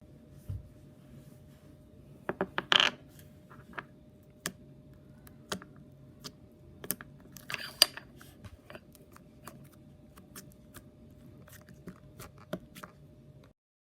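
Slime being handled, giving irregular sharp clicks and pops, with two louder crackly squelches about three seconds in and again near the middle.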